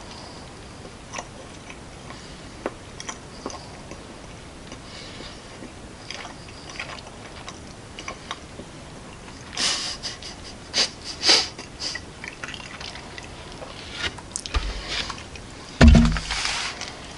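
Close-up chewing and small mouth sounds of someone eating milk chocolate, with a few sharper crackles about ten seconds in. Near the end comes a loud bump and handling noise as the camera is moved.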